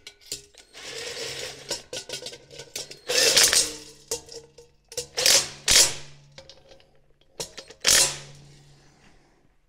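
Impact gun running in several short bursts, driving M6 fender bolts into the aluminum fork.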